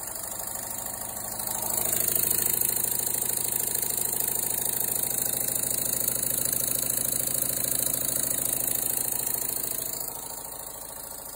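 Small oscillating steam engine from a PM Research kit running on compressed air at about 25 psi, its exhaust chuffs coming so fast they blur into a steady buzzing beat over a high air hiss. It picks up and gets louder a second or two in as the higher pressure takes hold, then fades near the end.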